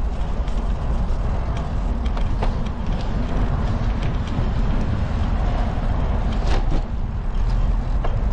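A bicycle riding along a paved park path, heard from a handlebar-mounted camera: a steady low rumble of wind and tyre noise, with a few small clicks and rattles from the bike.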